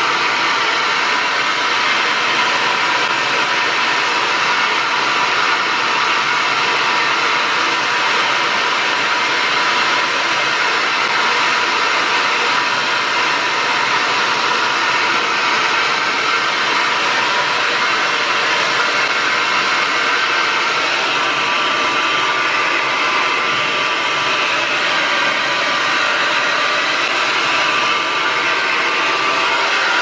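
Irresistible Me Black Diamond infrared ionic hair dryer running continuously, a steady rush of blown air with a faint whine from its motor.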